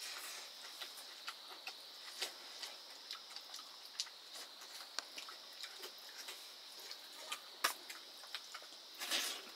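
Irregular soft clicks and smacks of someone eating rice and greens mukbang-style, a few a second, over a steady high drone of crickets. Near the end comes a louder, brief rush of noise.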